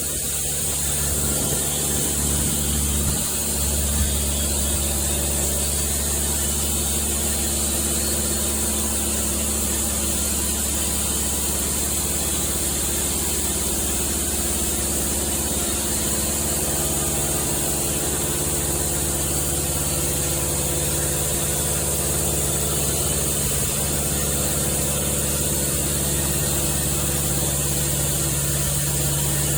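An engine running steadily with a steady hiss over it; its low hum grows a little stronger about halfway through.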